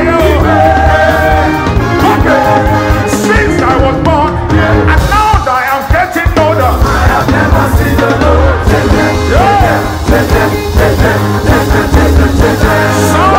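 Live gospel praise band and singers performing an upbeat song, with a steady bass and drum beat under the voices.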